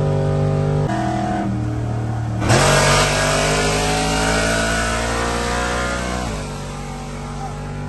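A car engine at wide-open throttle during a roll race: a steady drone, then about two and a half seconds in the engine opens up suddenly and its pitch climbs for about four seconds before it lets off.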